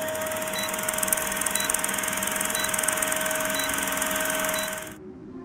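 Steady machine-like hum and hiss with one held tone, cutting off suddenly about five seconds in.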